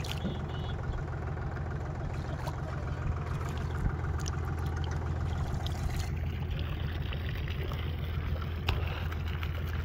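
Steady low engine drone, like a motor running at idle, with a few faint clicks over it.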